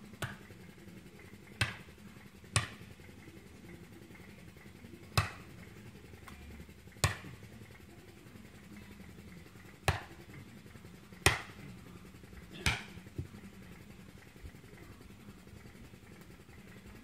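Sharp single knocks, about nine of them at uneven intervals of one to three seconds, over a faint steady low hum.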